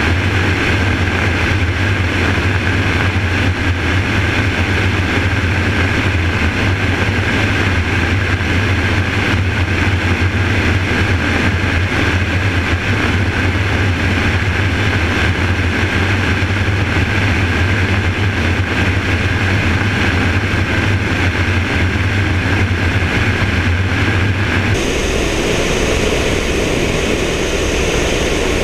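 Helicopter in flight: rotor and engine noise from a camera fixed to the outside of the aircraft, a steady loud drone with a thin higher tone over it. About 25 seconds in the sound changes abruptly as it switches to the other outside camera.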